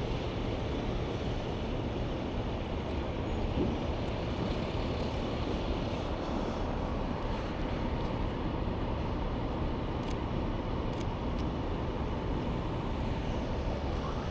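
Steady city street traffic noise, a low, even rumble of passing vehicles.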